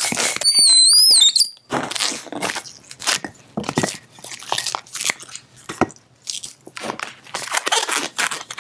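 A hand pump inflating a long thin latex twisting balloon, with a brief wavering high squeal about half a second in. Then irregular squeaks and rubs of the latex as the balloon is knotted and handled.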